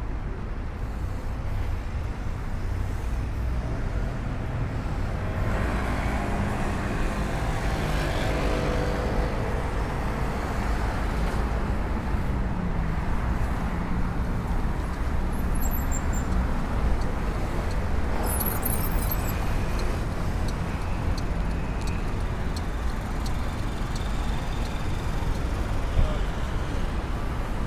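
Steady rumble of busy city street traffic, cars and buses running past, with a louder stretch about a third of the way in as a vehicle goes by.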